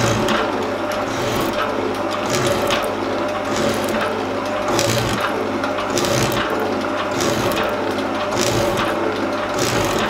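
Elliott shaping machine running, its ram stroking back and forth as the tool takes roughing cuts in an aluminium block. A steady machine hum with a short burst of cutting noise on each stroke, about one stroke every 1.2 seconds.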